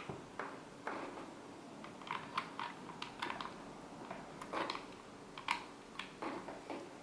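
Irregular sharp plastic clicks and clacks, a few a second with short pauses, as the halves of an Ergo Split mechanical keyboard are handled and a USB-C cable is plugged into the right half.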